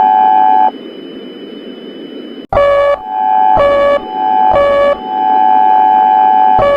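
Electronic emergency-alert alarm tone: a steady, buzzy high tone broken every second or so by a short lower tone. It cuts out to a hiss for nearly two seconds, then comes back after a click.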